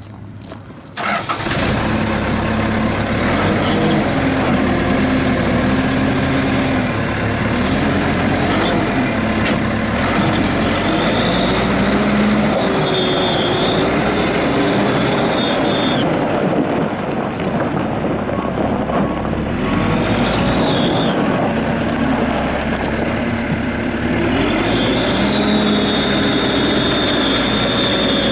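A 1995 Caterpillar 436B backhoe loader's diesel engine starts about a second in, then runs with its speed rising and falling. A high whine comes and goes over it.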